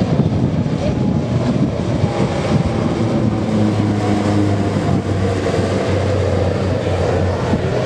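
Piston engines and propellers of a formation of four single-engine propeller aircraft droning as they fly past. The drone grows stronger about halfway through and sinks slightly in pitch near the end.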